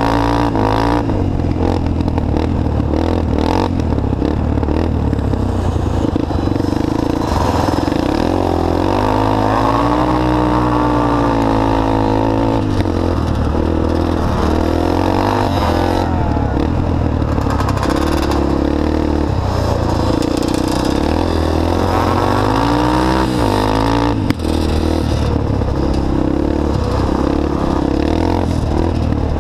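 All-terrain vehicle engine heard on board at racing speed, revving up and easing off in repeated swells, with a steady low drone beneath. One sharp knock about five seconds before the end.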